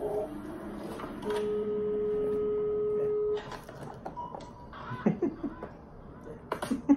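Quiet opening of a music video: a single steady electronic tone held for about two seconds, then faint scattered clicks and small sounds before the song starts.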